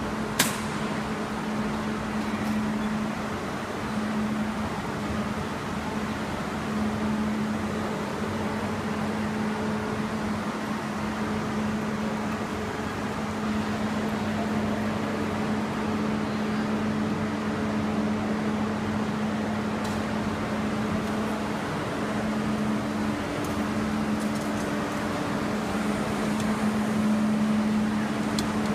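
Railway station ambience: a steady mechanical hum with a constant low tone over a background hubbub, with one sharp click about half a second in.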